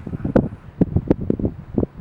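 Wind buffeting the microphone in uneven low gusts, with a few sharp clicks.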